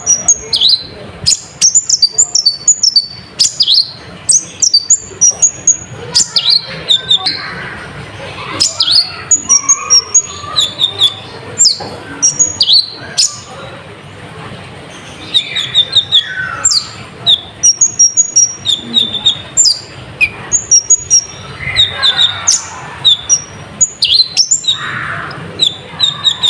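Konin (kolibri ninja) sunbird singing a full-isian song: rapid clusters of short, sharp, high chirps and twitters, broken by brief pauses, filled out with phrases taken from other birds' songs.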